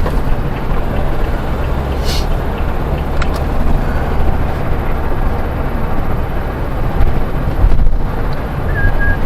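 Diesel engine drone and road noise heard from inside a vehicle's cab while driving, steady and low. A short electronic beep sounds near the end.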